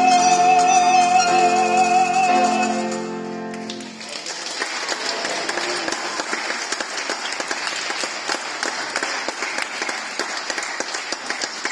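A male singer holds a long final note with vibrato over piano and violin accompaniment, ending about three and a half seconds in. Audience applause follows and continues.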